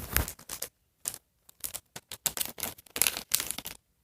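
Small packaging from a toy blind pack rustling and crinkling in the hands as it is opened and its accessories are taken out, in a run of short, irregular crackles.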